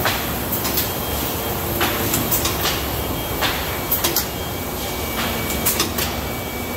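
Cylinder printing press running: a steady mechanical rattle with several sharp clacks at irregular intervals.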